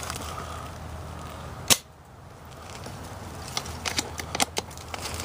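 An airsoft gun firing a single sharp shot about a second and a half in, followed a couple of seconds later by a scatter of lighter clicks and snaps.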